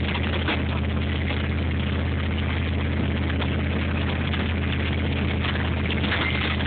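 Pickup truck engine running steadily at low speed while towing, a constant low hum with a steady hiss over it.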